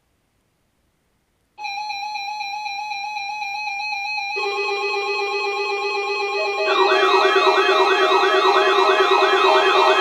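Several weather radios sounding their alert alarms for a tornado drill broadcast. A steady high beeping tone starts about a second and a half in, a lower steady tone joins about four seconds in, and a warbling, siren-like alarm rising and falling about twice a second joins near seven seconds in.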